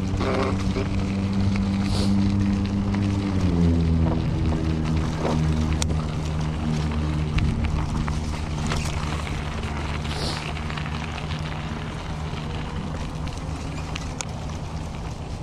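Electric bike motor humming as it rides over a dirt track; its pitch drops about three and a half seconds in as the bike slows, then holds steady. Short clicks and rattles from the bike on the rough ground, and wind on the microphone.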